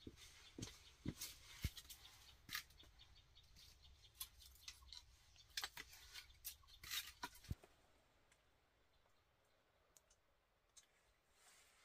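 Irregular small clicks, taps and knocks of things being handled by hand on a dirt floor, stopping about two-thirds of the way in; near silence after that.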